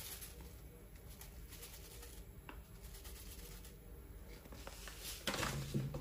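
Ground coffee poured from a paper bag into the paper filter of a drip coffee maker: a soft rustle and patter of the grounds and bag. Near the end there is a louder, brief rustle with a low knock as the bag is handled.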